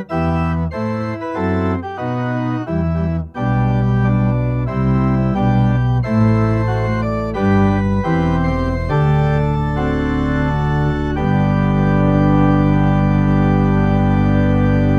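Church organ playing a run of sustained chords over a moving bass line, then settling on one long held final chord for the last four seconds or so, released at the very end.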